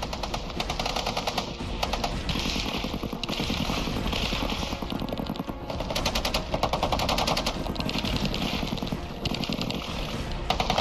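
M240 belt-fed machine guns firing long automatic bursts, with brief pauses between them.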